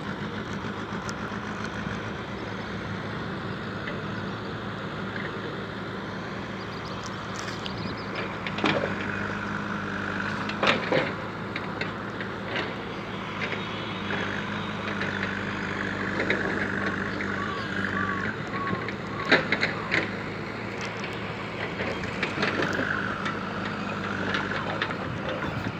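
Steady engine hum with a few sharp knocks about 9, 11 and 19 seconds in.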